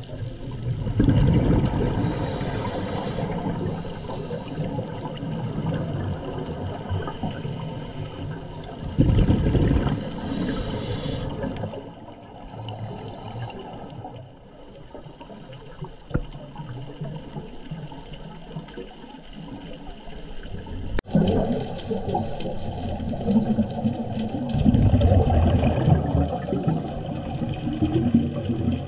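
Scuba diver's exhaled bubbles from the regulator gurgling and rumbling underwater. The bubbles come in irregular surges: one about a second in, another around nine seconds, and a run of them in the last third.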